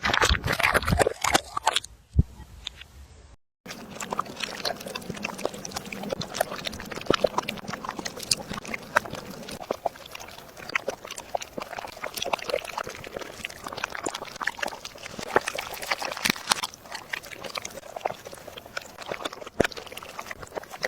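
Dogs eating: a steady stream of irregular wet smacking and chewing clicks, louder for the first couple of seconds, broken by a brief silence about three seconds in.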